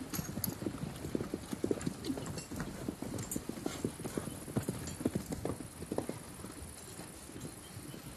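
Horses' hooves clip-clopping at a walk, many irregular overlapping knocks, with a faint steady high hiss joining about four seconds in.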